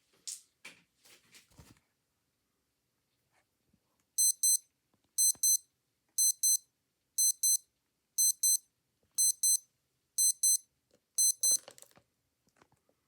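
Digital watch alarm beeping: eight high-pitched double beeps, about one pair a second, starting about four seconds in. Brief handling rustles and clicks come before and just after the beeps.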